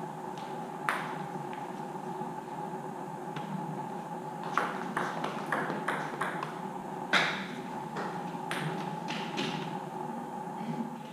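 Table tennis ball clicking sharply off bats and table in a rally, in quick runs of hits, the loudest hit about seven seconds in, over a steady hum.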